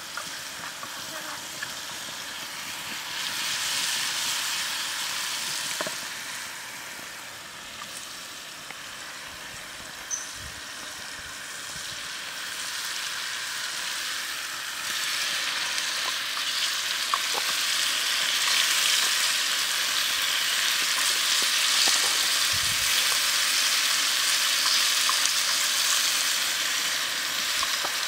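Oil sizzling steadily in a metal pan as sliced shallots, garlic and chili fry, with a few light clicks as the food is stirred. The sizzle grows louder about halfway through.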